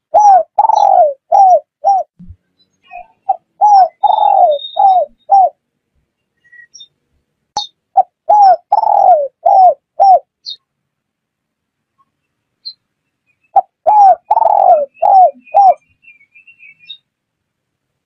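Spotted dove cooing: four phrases of about five low coos each, the second coo of each phrase the longest, with pauses of a few seconds between phrases.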